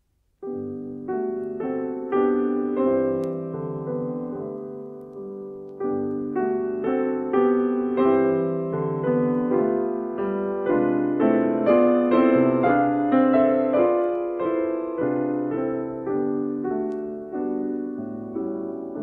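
Solo piano playing classical music from a mono vinyl LP; the piece begins about half a second in, after a silent gap between tracks, with a run of struck notes and chords.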